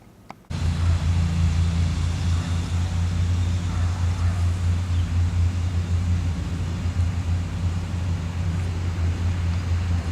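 A vehicle driving, with a steady low drone of engine and road noise that cuts in suddenly about half a second in.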